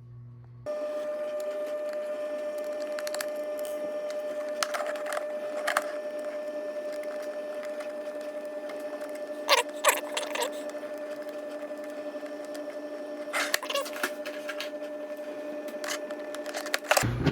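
A steady machine hum with a fixed tone, with several short clusters of light clicks and taps as small bolts and printed plastic parts are handled and fitted.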